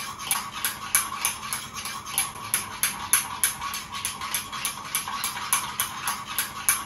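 A metal spoon clicking rapidly and evenly against the inside of a small cup, about five strikes a second, as coffee is beaten by hand to work up froth.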